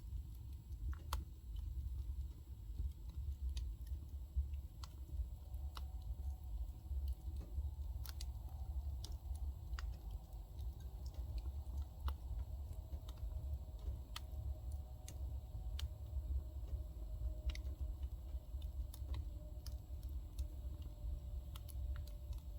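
Wood fire crackling, with irregular sharp pops over a steady low rumble.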